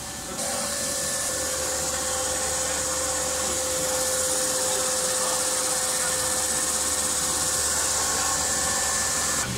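Havesino HN1600 PET film slitting machine running at high speed: a steady high hiss from the film web and rollers over a constant mid-pitched hum. It gets louder about half a second in.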